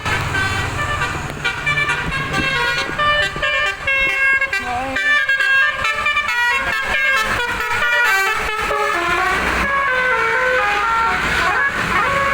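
Bus telolet horn, a multi-trumpet electric air horn, playing a quick tune of short notes that step up and down several times a second, over the low sound of the bus engine.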